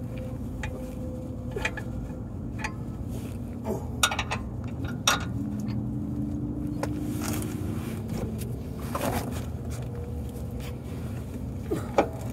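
Scattered clinks and knocks of hand tools and suspension parts during work on a car's control arm, the sharpest about four and five seconds in and again near the end, over a steady low hum.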